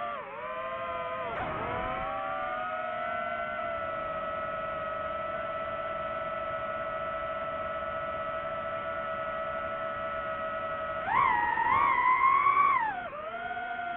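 DJI FPV drone's four propellers and motors whining steadily while it holds throttle. About eleven seconds in, the pitch jumps up and the whine gets louder and wavers for a couple of seconds, then drops back as the throttle eases.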